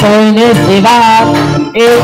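Loud amplified band music with a man singing into a microphone, with a brief drop in the sound near the end.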